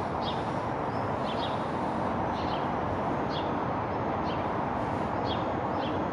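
Steady outdoor background din like distant city traffic, with a small bird chirping short high calls about once a second.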